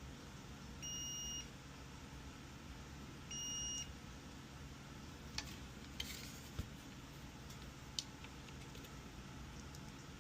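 Digital multimeter's continuity beeper sounding twice, each a steady high beep of about half a second, while the transformer of a furnace control board is tested. Then a few sharp light clicks.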